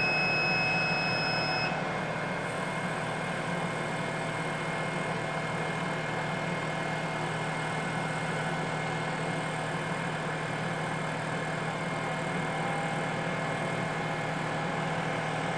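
BK-350S BGA rework station running with a steady, even hum, its vacuum pump switched on for the suction pen. A high electronic beep from the station stops about two seconds in.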